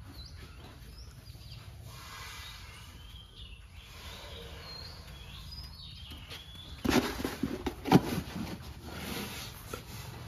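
Outdoor ambience with a steady low rumble and birds chirping now and then. About seven seconds in comes a run of loud knocks and thumps lasting a few seconds.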